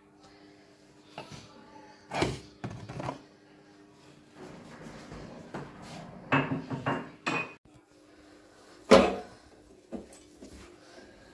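Dishes and cookware clattering as they are picked up, moved and set down on a kitchen counter: a string of separate knocks and clinks, the loudest about nine seconds in.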